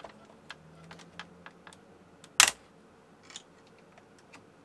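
Light ticks and taps of hard plastic toy parts being handled, with one loud sharp click-clack about halfway through.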